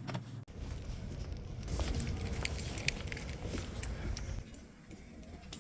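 Keys jingling and clicking, with scattered sharp clicks over a low handling rumble that fades out about four and a half seconds in.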